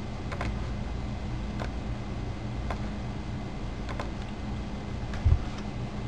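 Scattered single clicks from a computer's keys or buttons, roughly one a second, over a steady low electrical hum, with one short low thump about five seconds in.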